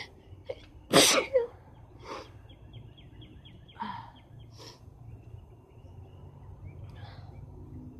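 A woman sneezing: one loud, sharp sneeze about a second in, followed by a few quieter, shorter bursts.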